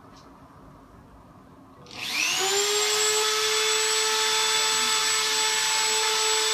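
An electric power tool's motor switches on about two seconds in, rising quickly to a steady high whine over a rushing hiss.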